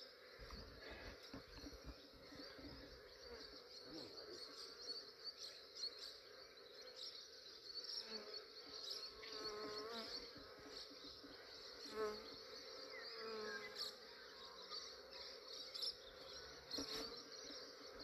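Honey bee swarm buzzing steadily, with louder pitched buzzes that swell and fade as single bees fly past close by, most often around the middle.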